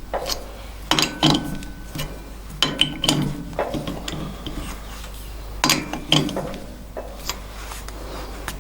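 Chuck key tightening the jaws of a four-jaw lathe chuck: metal clinks and scrapes in three short clusters, about one, three and six seconds in.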